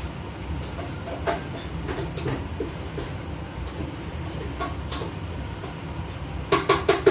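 Kitchen range hood extractor fan running with a steady low rumble, with scattered light clicks and a quick clatter of clicks and knocks near the end.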